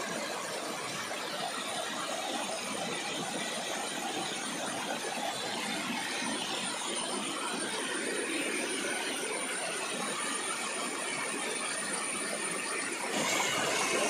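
Small waterfall cascading over rocks: a steady rush of splashing water. About a second before the end it changes abruptly to a louder, different rush.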